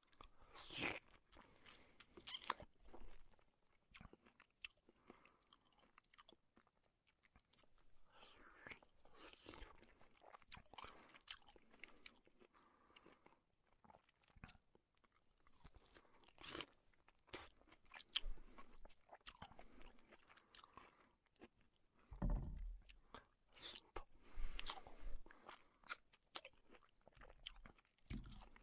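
Faint, irregular crunching and chewing of someone eating, picked up inside a car's cabin, with a few heavier low thumps about three-quarters of the way through.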